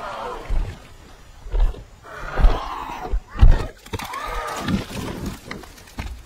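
Film sound effects of large pterosaurs: several shrill, whinny-like cries that rise and fall in pitch, with deep thumps in between as the creatures swoop in and land.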